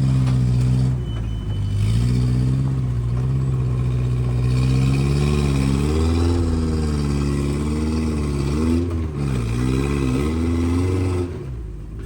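Off-road 4x4's engine being worked on the throttle, its pitch repeatedly rising and falling, with quicker dips near the end.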